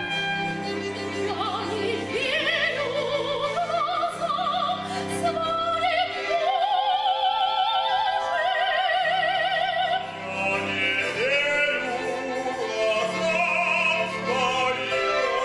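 Orchestral music with an operatic voice singing with a wide vibrato, the voice coming in about two seconds in.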